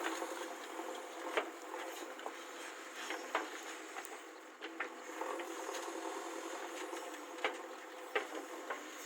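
JCB backhoe loader's diesel engine running steadily while the machine works, with several short knocks and clanks of the bucket and earth scattered through.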